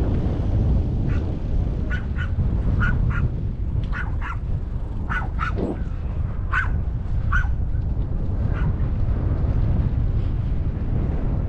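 About a dozen short animal calls at an uneven pace, dying out near the end, over a steady rumble of wind on the microphone.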